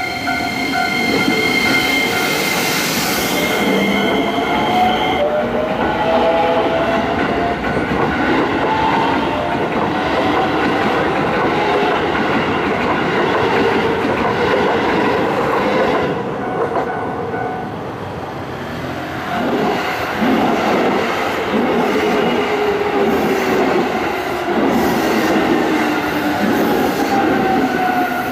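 Keisei electric trains passing close by on the main line: wheels clattering over the rails under a motor whine that rises and falls in pitch. A steady high tone runs through the first five seconds and stops, and the train noise eases briefly about eighteen seconds in before building again.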